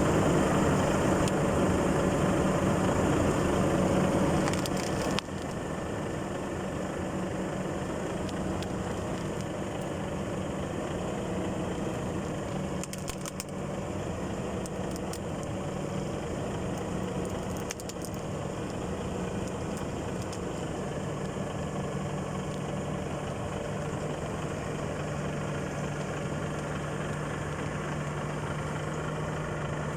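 A vehicle engine running steadily, louder for the first five seconds, with a few short sharp cracks near the middle as the toy car gives way under the tyre.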